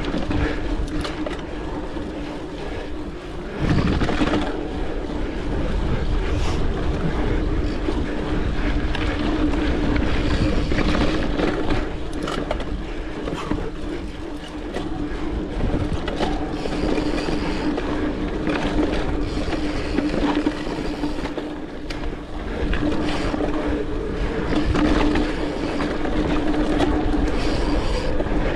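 Mountain bike ridden along a dirt trail: tyres rolling and the bike rattling and clicking over bumps, with a steady hum underneath.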